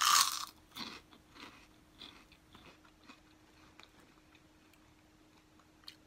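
Biting into a puffed pork rind, microwaved hot and spicy: one loud crunch at the start, then a few quieter crunching chews over the next couple of seconds that fade away.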